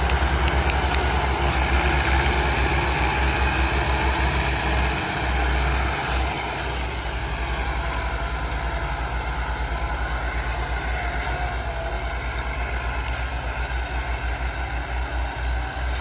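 Two diesel tractor engines running steadily under load as the tractors pull disc harrows through ploughed soil, growing a little fainter about six seconds in as they move away.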